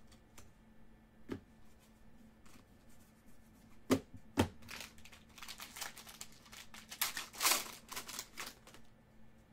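Two sharp knocks, then a foil trading-card pack wrapper crinkling and tearing as it is pulled open by hand, for about four seconds.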